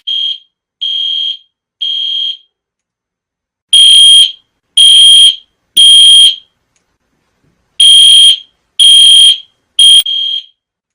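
Fire alarm sounding: a high beeping tone in groups of three beeps about a second apart, with a short pause between groups, the temporal-three evacuation pattern. The first group is softer than the two that follow.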